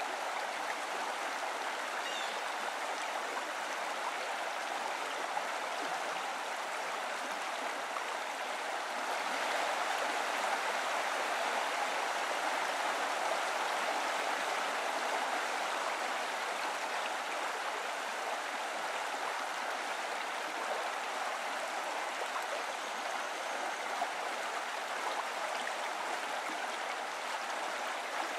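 Steady rush of a flowing mountain stream, an even water noise with no rhythm, swelling a little partway through.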